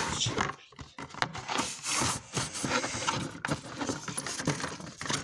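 Handling noise from paper and a board being shuffled and moved close to the microphone: rustling, scraping and light knocks.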